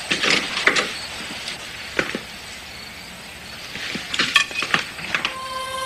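Hurried footsteps and knocks on a wooden floor, with clothing and movement noise, as a man leaves a room and runs down a hall. Sustained film-score music comes in near the end.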